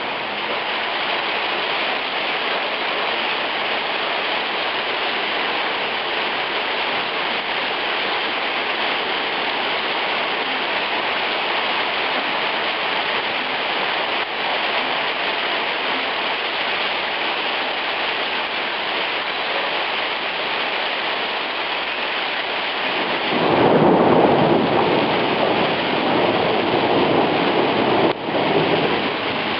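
Heavy hail mixed with rain pelting a cobbled street and a metal drying rack: a dense, steady hiss of hailstones. About 23 seconds in, a rumble of thunder swells over it for several seconds.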